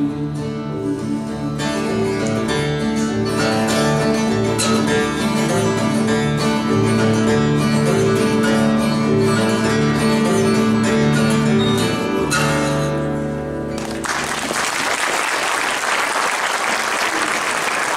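Instrumental ending of a song on two acoustic guitars and an upright bass, with no singing; the last chord rings out and fades about thirteen seconds in. Audience applause follows.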